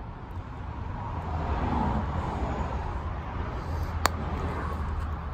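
Steady outdoor background rumble and hiss, growing a little louder about two seconds in, with one sharp click about four seconds in.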